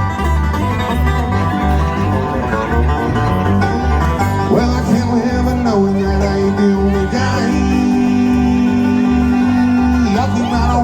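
Live bluegrass band playing an instrumental break between verses: banjo and guitar picking over a bass line that alternates between two notes about twice a second, with long held notes in the middle.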